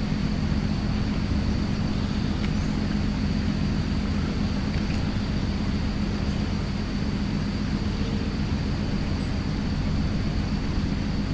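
A steady low motor hum, even in level with no changes, with a thin steady high tone above it.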